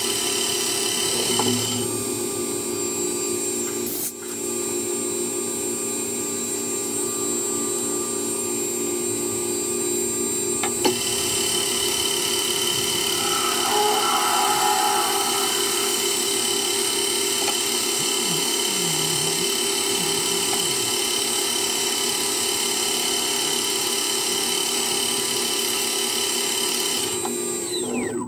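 Myford Super 7 metal lathe running steadily with a whine while a twist drill in a drill chuck bores into the spinning workpiece. Near the end the motor is switched off and the whine falls away as the spindle spins down.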